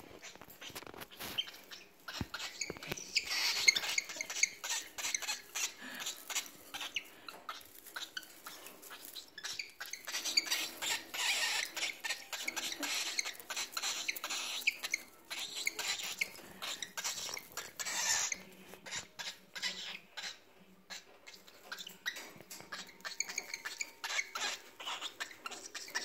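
Cockatiel squeaking and chirping, with dense rustling and many small clicks from the dry grass nest it perches on. There are louder, hissier stretches about three seconds in, around ten to thirteen seconds, and near eighteen seconds.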